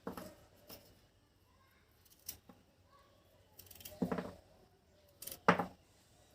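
A knife scraping and cutting a small piece of fresh ginger root in short, irregular strokes, five or six in all, the loudest about five and a half seconds in.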